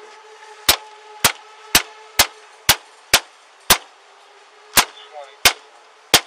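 Hard, sharp blows struck again and again on a car's side window, about two a second with a short pause near the middle: an attempt to break the glass to get into the locked car.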